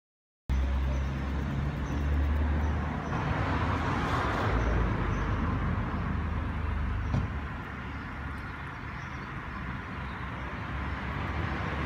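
Street traffic noise: a steady low rumble of passing and idling vehicles, starting about half a second in.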